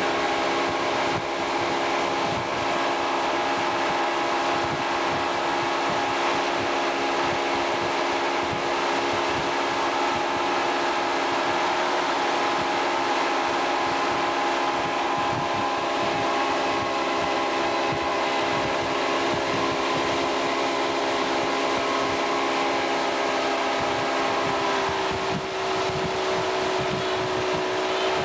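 Motorboat engine running steadily at towing speed, a constant droning note over a rush of wind and water; the engine note shifts about 25 seconds in.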